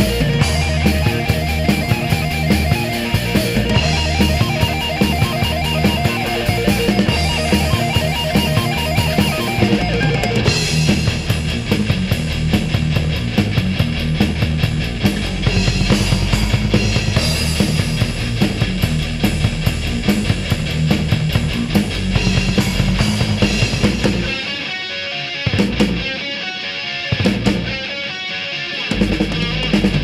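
Thrash/heavy metal recording with electric guitar riffing over the full band. About 24 seconds in, the dense playing breaks into stop-start hits, the low end dropping out between them.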